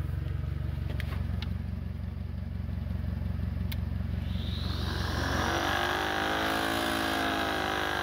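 The engines of a forklift-mounted lawn-mower hedge trimmer rig are running. A steady low engine drone runs throughout, with a few sharp ticks early on. About halfway, a higher, louder engine sound swells in as the mower engine comes up to speed, and its pitch wavers slightly.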